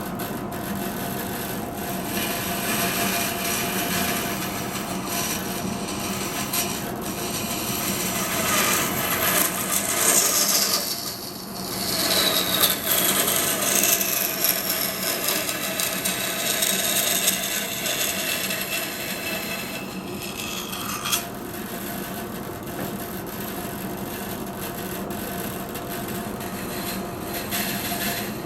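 Band saw running and cutting through wood: a steady machine hum under the rasp of the blade in the cut. The cut briefly eases off about eleven seconds in, with high whines falling in pitch, and changes again around twenty seconds.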